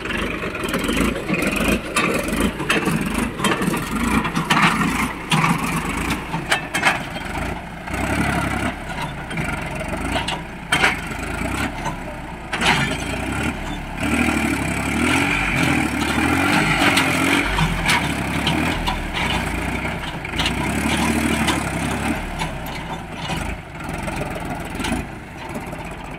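Solis tractor's diesel engine running hard under load as it drags a rear-mounted implement through deep sand, with its note wavering as the load changes and occasional sharp knocks.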